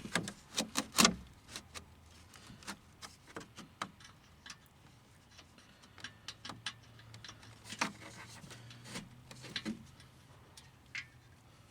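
Irregular clicks and light knocks of hand tools and screws working against a car's plastic underbody shield while it is fastened up from below. A quick run of clicks comes in the first second, then scattered ticks, with a faint low hum in the second half.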